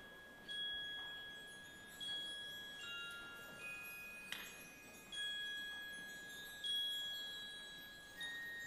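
A glockenspiel plays a slow, quiet line of single high notes, heard alone. Each note is struck about every second to second and a half and left ringing. There is a small sharp click a little past halfway.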